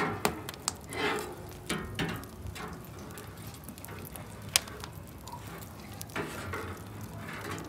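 Cloth covers being handled over large steaming rice pots: brief rustling swells with a few sharp clicks and knocks, the sharpest about four and a half seconds in.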